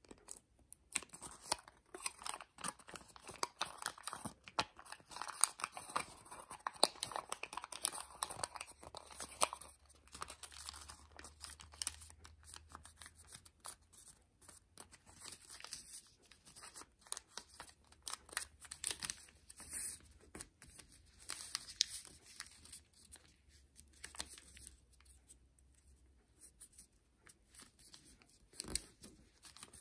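Thin kami origami paper rustling and crinkling as it is folded and creased by hand: a run of small, irregular crackles, busier in the first third and sparser after.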